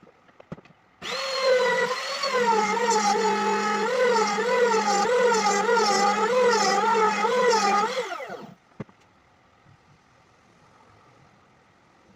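Electric power tool spinning up, running under load with its pitch wavering up and down about twice a second as it cuts, then winding down near the end. Sharp clicks come just before it starts and just after it stops.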